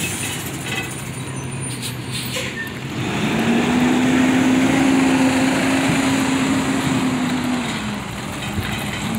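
Engine of a heavy road vehicle running, a steady low hum that grows louder about three seconds in and drops away near the end, over steady street traffic noise.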